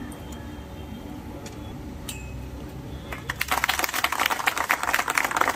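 A crowd breaks into clapping about three seconds in, a dense patter of hand claps that keeps going.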